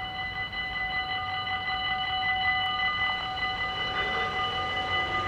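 Dutch level-crossing warning bell ringing steadily, several tones at once, signalling that the barriers are about to come down for an approaching train.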